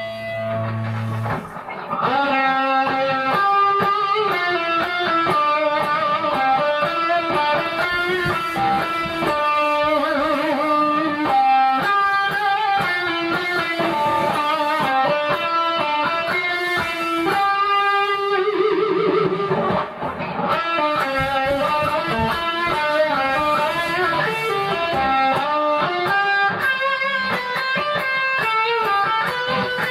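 Vintage Metal Axxe electric guitar played through an amplifier: a chord rings out, then fast lead runs of single notes from about two seconds in, with one long note held with vibrato about two-thirds of the way through.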